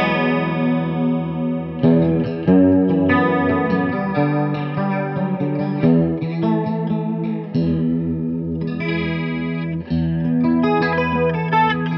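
Electric guitar played through a Moen Holy Choir chorus pedal: a series of struck chords and single notes with a wavering chorus shimmer. The pedal's Depth and then Rate knobs are turned while it plays, changing the chorus effect.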